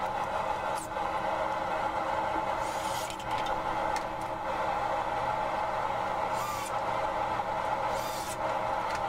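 A steady mechanical drone, with three short high whirring bursts from a cordless drill driving screws through a wooden board into a steel frame, about three, six and a half and eight seconds in.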